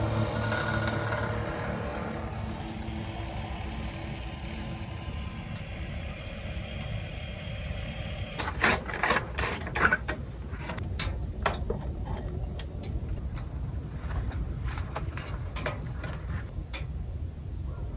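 A steady low hum, with a few faint steady tones over it for the first half. From about halfway, a run of light clicks and taps, as of gloved hands placing multimeter probes against the metal of the generator module.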